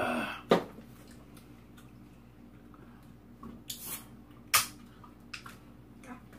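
Scattered sharp clicks and knocks of chopsticks and a drink can against bowls and the table while eating. The loudest clicks come about half a second in and again about four and a half seconds in. A short sigh comes at the very start.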